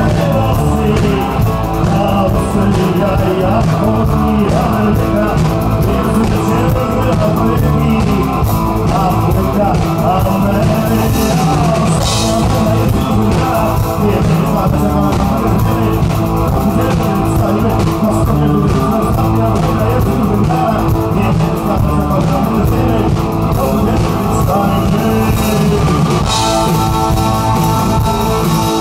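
Live rock band playing loud through a concert PA: sung vocals over electric guitar, bass and drum kit, steady and without a break.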